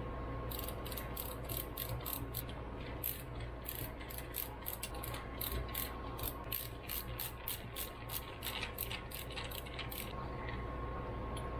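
Hand ratchet clicking in quick repeated strokes, about four clicks a second, with a brief pause near the start, as a fastener is run in on the carburetor.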